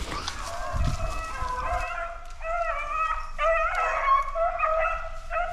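A pack of hunting dogs baying and yelping together, several voices overlapping, as they run a flushed wild rabbit; the cry builds and is loudest in the second half.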